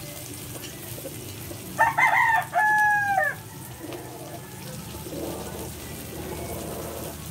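A rooster crows once, about two seconds in: a few short notes, then a long held note that falls away at the end.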